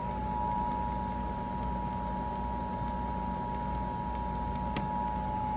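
Emergency Alert System two-tone attention signal: paired steady tones of 853 and 960 Hz sounding together over a radio broadcast with background hum and hiss. It announces that an emergency alert message, here a flash flood warning, is about to follow. A faint click comes near the end.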